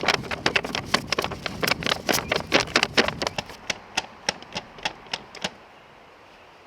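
A quick, irregular run of sharp clicks and taps, several a second, thinning out and stopping about five and a half seconds in.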